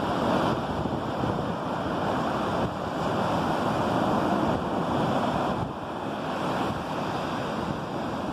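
Ocean surf breaking and washing up the beach: a steady rush that swells and eases slightly, with wind on the microphone.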